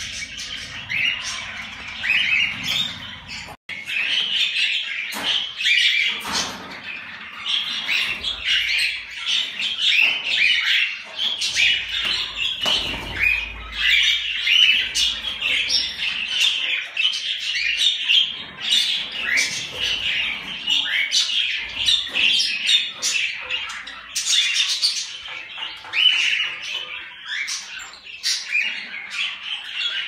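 Cockatiels calling: a busy, overlapping stream of short, harsh squawks and chirps from several birds, broken only by a momentary dropout about three and a half seconds in.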